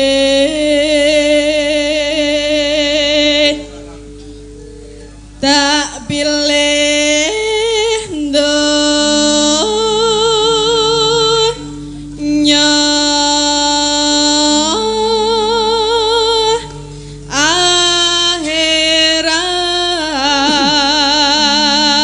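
A female sinden sings a Javanese gamelan song into a microphone, in long held notes with wide vibrato. The song comes in phrases with brief breaks between them. Sustained instrumental notes run beneath the voice.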